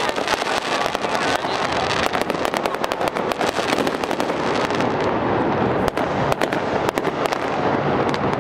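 Fireworks display going off: a dense, continuous crackle of many small pops and sharper bangs.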